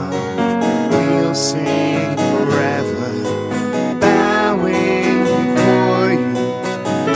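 Live worship song: a strummed acoustic guitar and an electric keyboard accompany a man and a woman singing.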